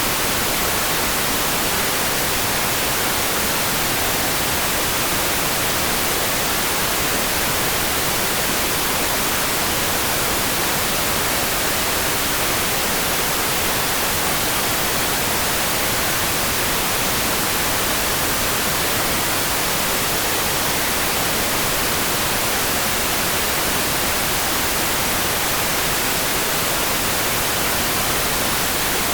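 Steady rain sound: an even, unbroken hiss with no single drops, thunder or other events standing out.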